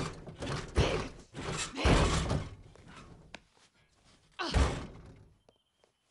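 Heavy thumps of a body being crammed into a small car's trunk, then the trunk lid slams shut about four and a half seconds in.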